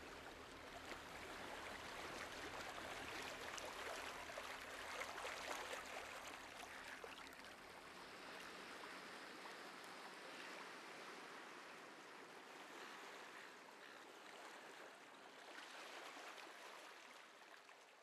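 Faint rushing, crackling noise like moving air or water. It swells about five seconds in and slowly fades away near the end.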